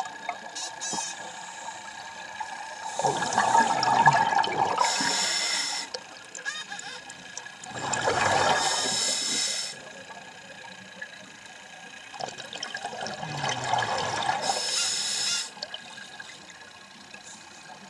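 Scuba diver breathing through a demand regulator underwater, about three breaths: each is a bubbling rush of exhaled air with a high hiss from the regulator, with quieter stretches between.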